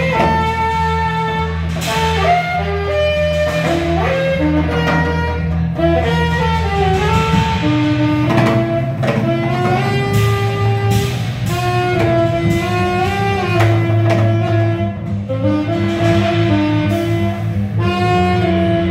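Small jazz combo playing live: drum kit, upright bass and hollow-body electric guitar, with saxophone, a single melodic solo line of held and bending notes over a moving bass line and steady cymbal strokes.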